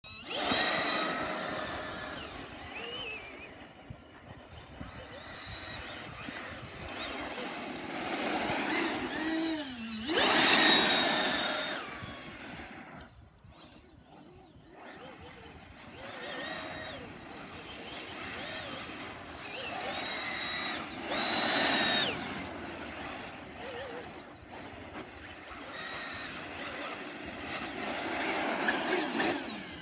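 A 1/8-scale RC buggy fitted with a 70 mm electric ducted fan, making a high electric whine like a vacuum cleaner that swells and fades as the throttle is worked. It surges loud several times: just after the start, with a rising pitch into the loudest burst around ten seconds in, again around twenty seconds in, and near the end.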